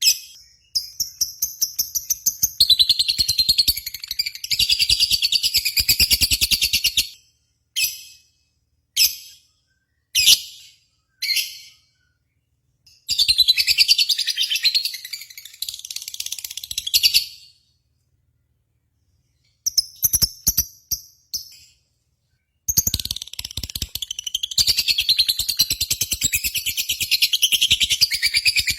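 Bird singing in long, fast chattering runs of high notes, broken by single sharp chirps and a few short silent gaps.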